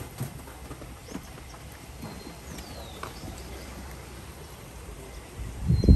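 A horse's hooves falling on a sandy pen floor, with a bird's falling whistle about halfway through. Wind buffets the microphone loudly near the end.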